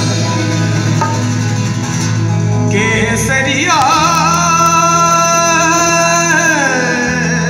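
Live rock band playing through a PA: a male lead singer over acoustic and electric guitars and drums. Loud and steady; from about halfway the singer holds a long note, then slides down from it near the end.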